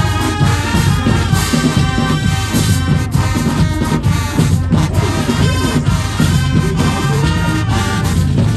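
HBCU-style marching band playing live: a full brass section of horns and sousaphones over the drumline's steady beat, loud and continuous.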